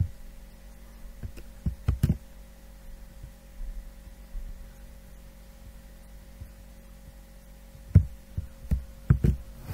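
Steady low electrical hum in the recording, with a few short, sharp clicks: one at the very start, a small cluster about two seconds in and another near the end.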